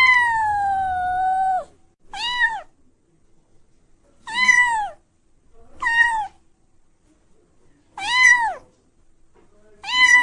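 A cat meowing again and again: one long meow falling in pitch, then short meows that rise and fall, about one every two seconds.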